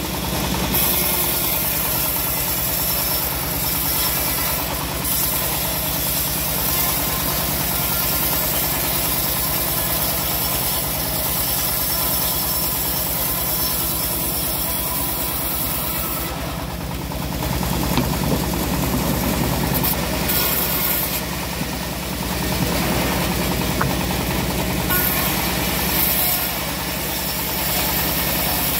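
Homemade band sawmill running: its engine runs steadily with an even pulse while the band blade saws lengthwise through teak logs. The sound shifts for a moment a little past halfway, then carries on.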